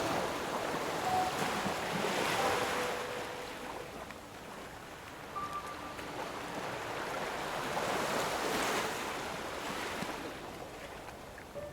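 Ocean waves washing onto a shore, the surf swelling about two seconds in and again near eight seconds. A few faint held notes sound over it.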